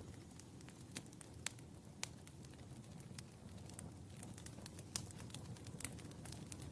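Wood fire burning in a fireplace: a steady low rumble with irregular sharp crackles and pops, the loudest pop about five seconds in.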